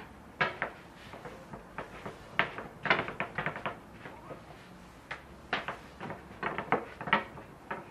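Long thin wooden rolling pins rolling dough sheets on a wooden table, with an irregular clatter of wooden knocks and taps as the pins are pushed, lifted and set down, thickest about three seconds in and again near the end.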